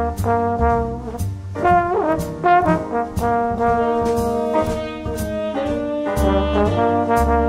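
Background music: a jazzy tune led by brass horns over a bass line and a steady beat.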